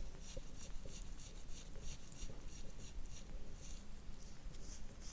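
Quick, soft rubbing strokes over oiled skin on a back, about three a second, from a hand-held soft-tissue scraping treatment.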